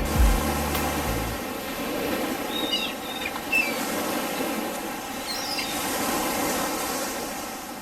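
Sea surf washing with a steady rush, with a few short chirping bird calls about three and five seconds in.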